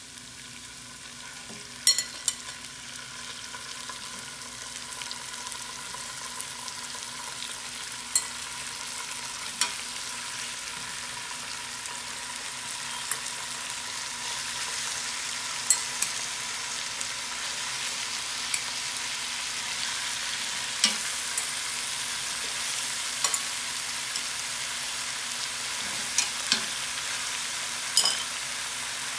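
Chicken pieces frying in hot oil with garlic and chili paste in a pan: a steady sizzling hiss that grows slightly louder, broken by scattered sharp ticks and pops.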